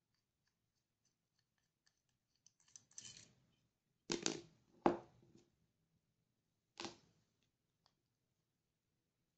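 Small metal parts of a mini HVLP spray gun being handled during disassembly: a few faint ticks, then a handful of sharp clicks and knocks, the loudest about four and five seconds in, as parts are set down on the tabletop.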